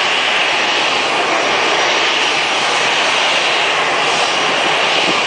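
Jet airliner engines running, heard as a steady loud noise with a strong hiss high up, holding an even level throughout.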